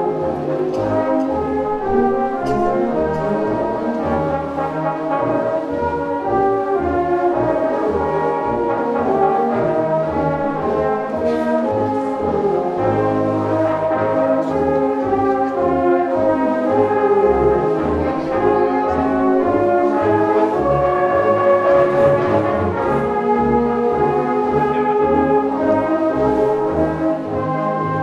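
Brass band playing a sustained, chordal piece: cornets, tenor horns, euphoniums and tubas sounding together in harmony, with the tubas carrying the bass line.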